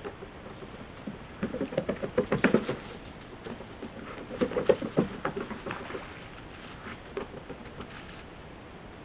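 North American river otters' paws pattering and scrabbling on wooden boardwalk planks as they tussle and run. There are two flurries of quick knocks and taps, one about a second and a half in and a louder one about four and a half seconds in, then a few scattered taps.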